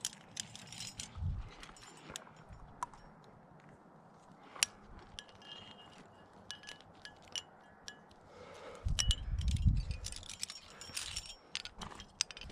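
Metal climbing gear clicking and clinking: carabiners and protection on a trad rack jangling with short ringing tones while a piece is set in the crack and a carabiner is clipped to it. A low rumble comes in about nine seconds in.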